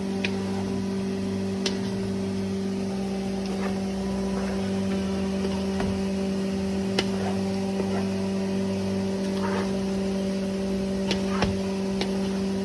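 A steady low machine hum from kitchen equipment, with a few short clicks and soft squishes as potato salad is mixed in a metal bowl.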